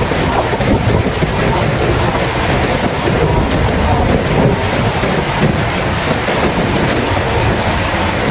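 Heavy rain falling steadily, a dense even hiss with a deep low rumble underneath.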